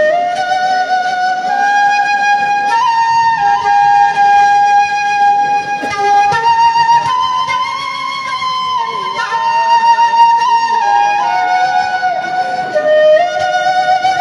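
Background music: a single melody of long held notes that step up and down, over a soft accompaniment.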